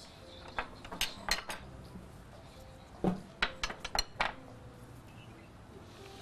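Small ceramic serving bowls clinking and knocking against each other and the counter as they are set out. There is a short run of sharp clinks about a second in and a busier cluster about three seconds in.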